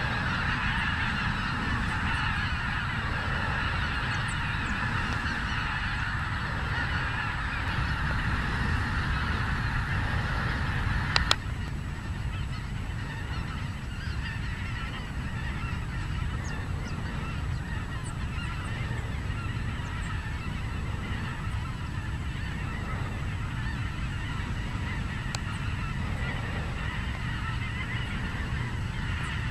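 A large flock of snow geese calling in flight, a dense continuous chorus of honks. About 11 seconds in there is a sharp click, and the chorus is quieter after it. A steady low rumble runs underneath.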